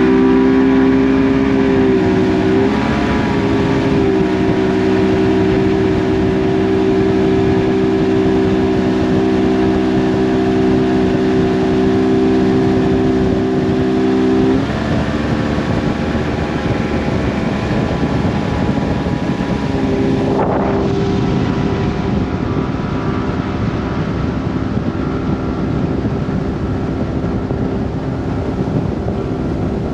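Bass boat's outboard motor running steadily at speed, the boat up on plane during its first test run after restoration. About halfway through, the engine tone drops back and a rush of wind and water takes over.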